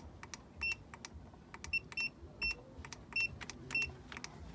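Buttons on a pay-as-you-go gas meter's keypad being pressed, each press a click, most with a short high beep. About six or seven beeps come at uneven intervals as the gas is switched on.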